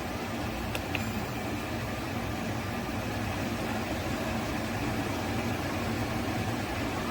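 SereneLife 10,000 BTU portable air conditioner running, a steady hum of fan and compressor, with two faint ticks about a second in.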